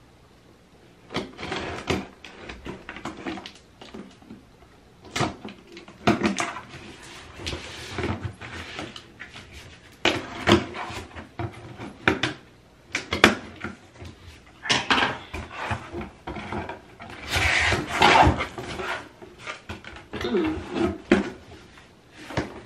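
Bathroom toiletries and containers being handled and sorted in an under-sink cabinet: an irregular run of knocks, light clatter and rustling.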